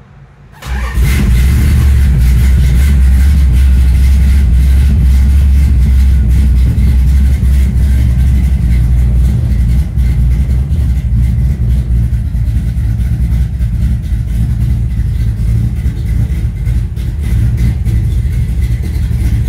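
A 1969 Dodge Super Bee's 440 Six Pack V8, heard from inside the cabin, fires and catches about a second in, then runs loud and steady through its Flowmaster mufflers.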